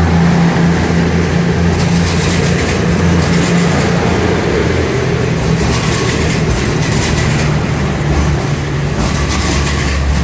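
East Midlands Railway Class 222 Meridian diesel multiple unit moving through the station, its underfloor diesel engines running with a steady low note over the rolling noise of the wheels on the track.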